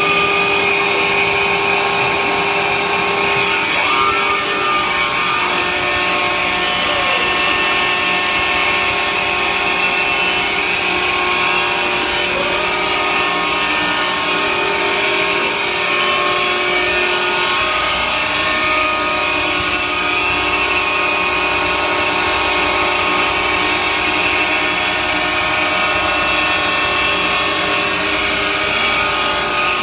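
CNC router spindle running and cutting printed sign sheet: a steady high whine with cutting hiss over it, shifting a little in pitch now and then as the head moves.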